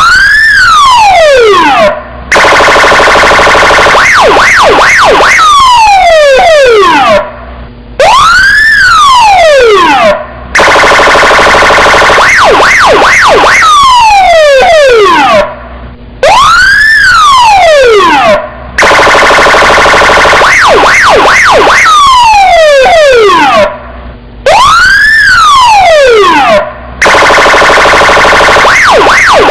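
Loud electronic police car siren looping about every eight seconds. Each cycle is a wail sweeping up and back down, then a steady buzzing tone broken by a few quick yelps, then a long falling sweep, with a brief cutoff before it starts again.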